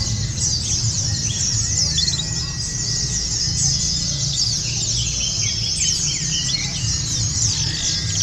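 Many white-eyes (pleci) singing at once in a dense, continuous high twittering of fast chirps, over a steady low rumble.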